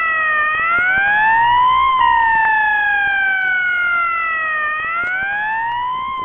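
Ambulance siren wailing. Its tone falls slowly, rises over about a second and a half, falls again for nearly three seconds, and starts rising once more near the end.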